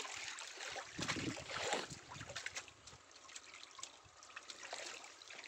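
Water trickling and splashing off a wet cast net as it is hauled up out of shallow pond water. A few louder splashes come in the first two seconds, then quieter dripping.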